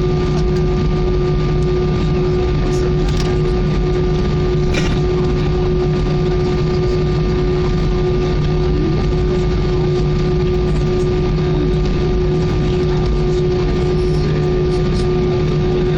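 Cabin noise of an Airbus A319 taxiing: the jet engines' steady hum and whine, several held tones over a low rumble, heard from a seat over the wing.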